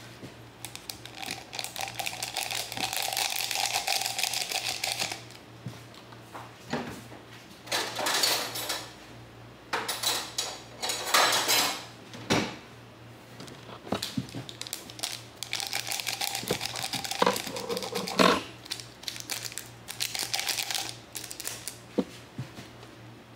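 Crinkling and rustling of a drink-mix sachet being handled, in several stretches of a few seconds each, with scattered clicks and knocks on the table.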